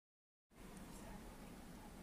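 Near silence: dead silence, then about half a second in a faint, steady room tone with a low hum sets in.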